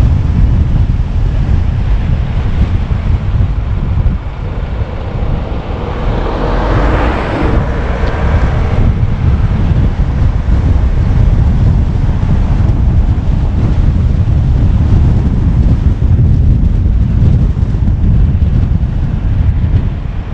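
A car driving along a road: a steady low rumble of wind buffeting the microphone and road noise. A brighter rushing sound swells and fades about a third of the way in.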